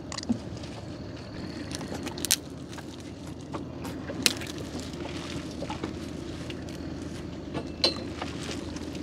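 Gill net being hauled and picked over a wooden boat: light rustling and crackling of the net with four sharp knocks and taps, over a steady low hum.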